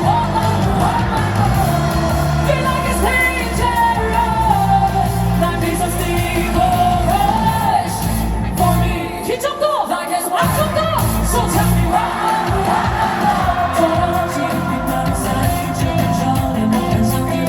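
Live pop/hip-hop song played loud over a concert PA, with a sung vocal melody over a heavy bass beat. The bass drops out for about a second around the middle, then comes back in.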